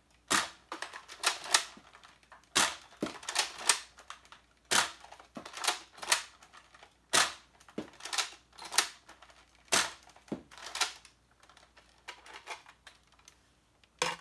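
Nerf Longstrike spring-powered dart blaster being primed with its bolt and fired again and again: a string of plastic clacks and sharp snapping shots, one to two seconds apart, thinning out near the end.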